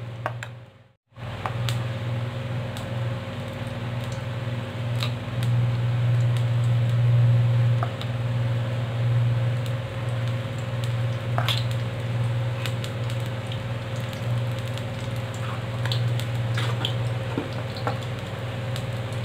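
Besan pakora batter deep-frying in hot oil in a steel kadhai: a steady sizzle with occasional sharp clicks of a steel spoon against the pan as more batter is dropped in. A steady low hum runs underneath, and all sound drops out briefly about a second in.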